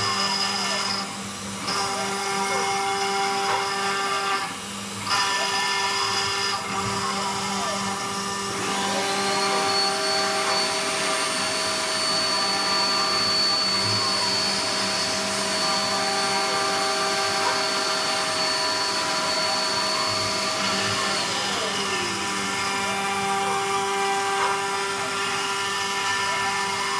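Homemade CNC router cutting wood with a 500 W spindle and a 2 mm two-flute straight bit: a steady spindle whine under the cutting noise, with the stepper motors whirring in repeated rising-and-falling glides as the axes trace a circle. About a third of the way in a vacuum cleaner starts up with a steady high whine and runs to about three quarters of the way through, sucking up the chips at the bit, then winds down.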